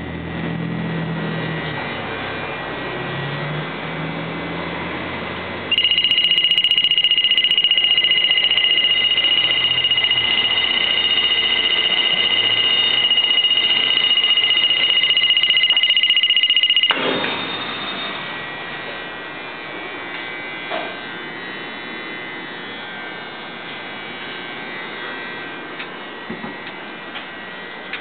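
A loud, high-pitched electronic buzzer sounds as one steady tone for about eleven seconds, starting suddenly a few seconds in and cutting off suddenly. Under it and after it, the Hardt Inferno chicken rotisserie runs with a steady hum.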